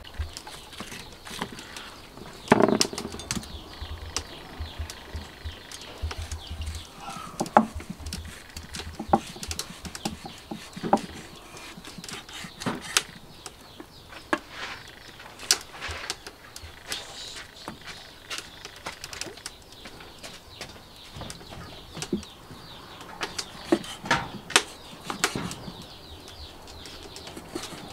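Kitchen knife slicing raw pork and knocking on a wooden stump chopping block, with irregular clicks and thuds from handling the meat; the loudest thud comes about two and a half seconds in.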